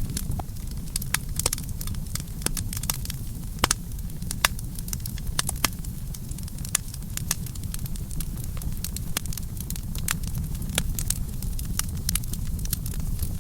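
Campfire burning with a steady low rumble and irregular sharp crackles and pops from the wood, several a second.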